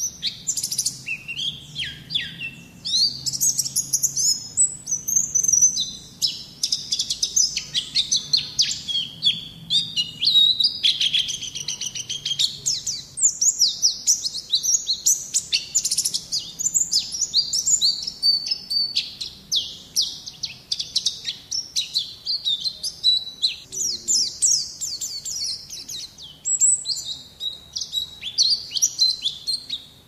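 Zosterops white-eye (pleci) singing a rapid, nearly unbroken run of high-pitched chirps and twittering trills.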